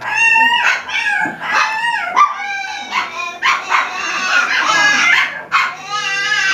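Alaskan Klee Kai dogs yipping and whining in a rapid series of high-pitched yips.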